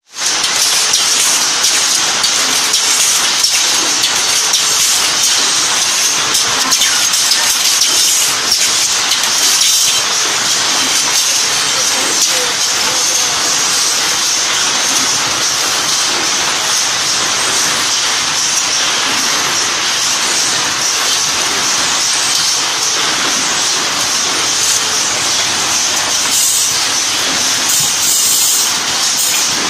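Automatic slide-rail assembly machine running: a steady, dense metallic clatter with a high hiss, going without a break.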